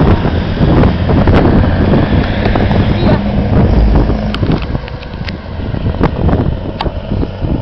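Traffic engine noise with a steady low drone, mixed with heavy wind buffeting on the microphone. A van drives past about four seconds in, and the noise eases after it.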